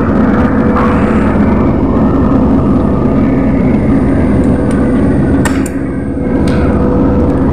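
Handheld jackhammer running continuously as it breaks very hard concrete, with a brief drop in level about six seconds in as the tool is lifted and repositioned.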